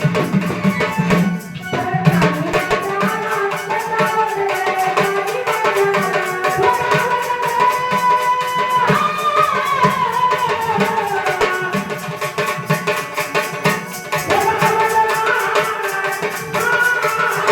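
Indian devotional folk music: a melody with gliding pitch over a fast, steady beat of hand drum and rattle.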